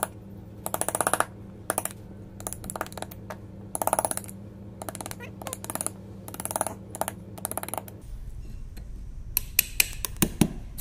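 Steel hammer tapping a narrow chisel into a hardwood plane body, chopping out waste for the wedge seat: about a dozen bursts of quick light blows, then a few separate, sharper strikes near the end.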